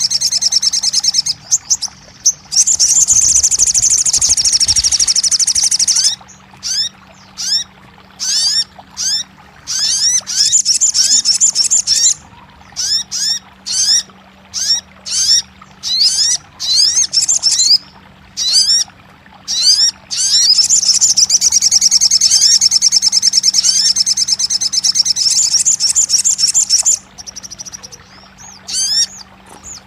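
Sogon songbird singing: long, very high, rapid trills alternating with runs of short, quick rising chirps about two a second, with a faint steady hum under it.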